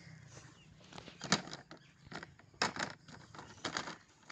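Short crackles and scrapes of hands working through dry soil and stalks, a handful of sharp ones about one to four seconds in, over a faint steady low hum.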